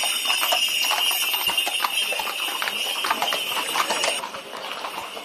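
Several horses' hooves clip-clopping at a walk on a paved street, in a loose irregular patter. A steady high buzz runs beneath and cuts off about four seconds in.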